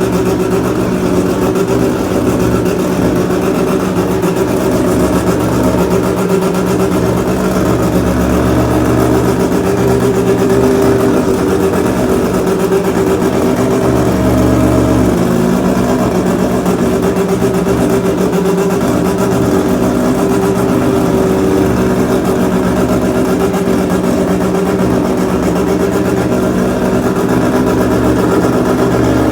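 Four-rotor Mazda rotary engine running loud and steady at idle, its pitch shifting only slightly now and then.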